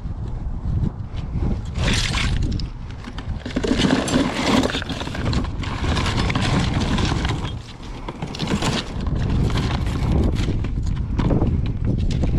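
Clattering and rustling of objects being handled and rummaged through, with many short knocks and clinks over a rumbling background.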